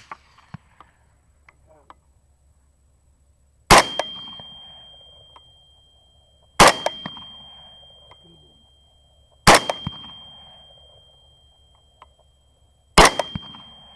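Four rifle shots fired at a hog, about three seconds apart, each followed by a long rolling echo that dies away over a couple of seconds. A steady high-pitched whine starts with the first shot and carries on between the shots.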